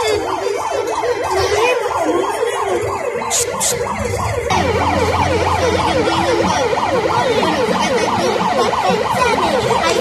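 Several sirens yelping at once, many rapid rising-and-falling wails overlapping without a break. A steady low hum joins about four and a half seconds in.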